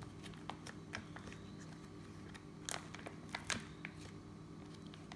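Butter's paper wrapper crinkling and rustling as it is unfolded by hand, in scattered crackles with a few sharper crinkles near the middle. A steady low hum runs underneath.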